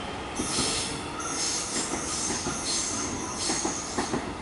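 X'Trapolis electric suburban train pulling out of the station, its wheels squealing with a high steady tone from about a second in, over a hissing rush of wheels on rail.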